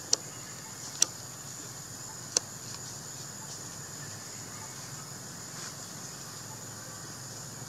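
Steady high-pitched drone of insects, with three sharp clicks in the first two and a half seconds.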